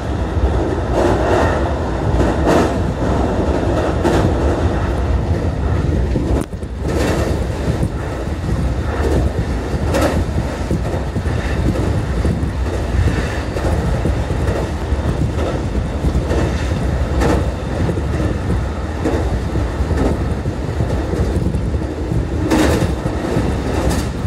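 Electric train running at speed, heard from inside the carriage: a steady low rumble with scattered clacks of the wheels on the track. The sound dips briefly about six and a half seconds in.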